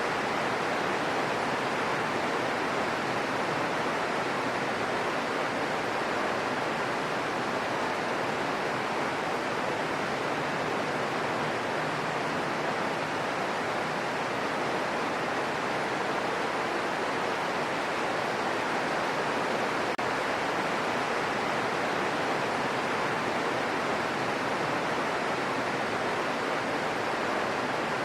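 Gentle rain falling, a steady even hiss that does not change.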